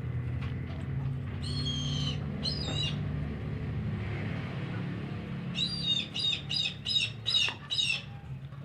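An eagle calling: two short, high calls in the first few seconds, then a quick run of about six calls near the end, over a steady low hum.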